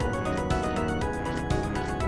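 Black MIDI music: an extremely dense wall of synthesized MIDI notes played at once, with a strong accent about once a second.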